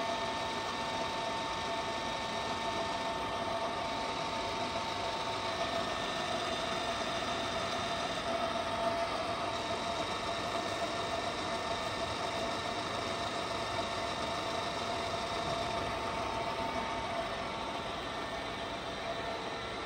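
Csepel RF 50/1250 radial arm drill running with its spindle turning under power feed, set to travel in the backward direction. It gives a steady machine hum and gear whine with a few constant tones, easing off slightly over the last few seconds.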